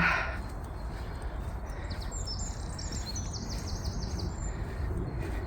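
A small songbird sings one phrase of quick, high notes that step downward and end in a fast run of repeated notes, about two seconds in. A steady low rumble of outdoor noise runs underneath.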